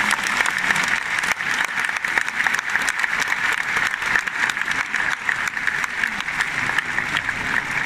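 Large bullring crowd applauding, a dense, steady clapping from the packed stands.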